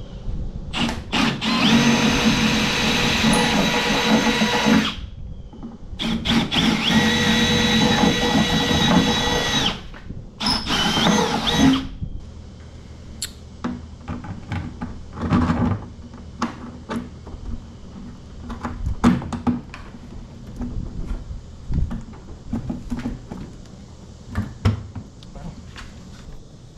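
Power drill boring bolt holes through the jon boat's transom: three long runs with a steady motor whine, the last one short. After them, scattered faint clicks and knocks.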